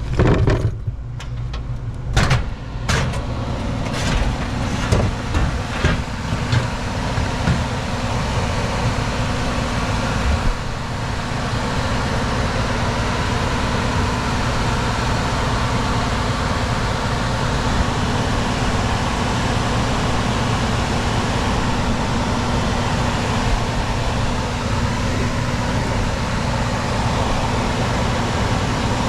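An old Lennox HVAC system running with a steady hum and rushing air. Several knocks and clatters come in the first seven seconds.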